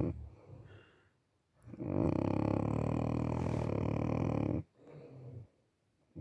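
Snoring in drawn-out breaths: one loud snore of about three seconds, then a short quieter breath, with silent pauses between breaths and the next loud snore starting at the very end.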